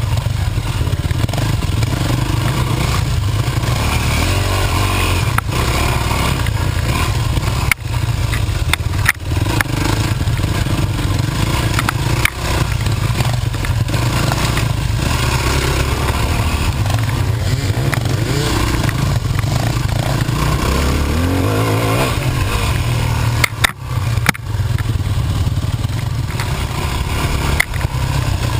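Dirt bike engine running under load at trail speed, revving up about four seconds in and again after about twenty-one seconds, with rattling and a few sharp knocks from the bike bouncing over the ground.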